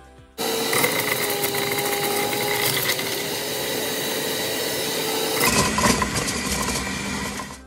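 Electric centrifugal juicer running with a steady high motor whine. About five and a half seconds in it turns lower and rougher as produce is pushed down the chute and shredded.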